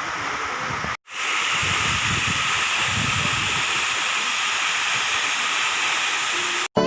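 Steady rush of a waterfall's falling water, broken by a brief silent gap about a second in and again near the end.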